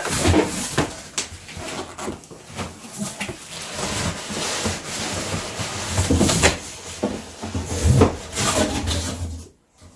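Cardboard boxes scraping and rubbing against each other as an inner carton is pulled out of an outer shipping carton, with a few dull knocks, the loudest about eight seconds in.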